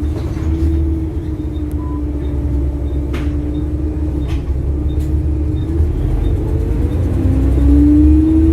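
Bus diesel engine running under way, heard from on board: a steady low drone with a whine that sags and then rises as the bus speeds up near the end. The exhaust manifold has failed, which makes the engine tick.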